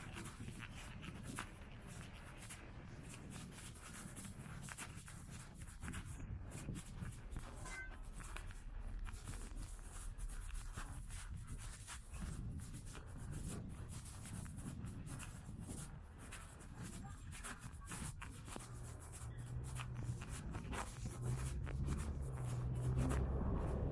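Faint outdoor waterfront ambience while walking: a steady low rumble with scattered soft clicks and rubbing, the rumble and a low hum growing louder near the end.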